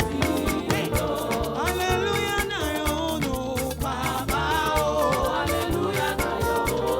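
Upbeat African gospel praise music with a steady, busy drum beat and instruments, some singing or melody lines gliding over it.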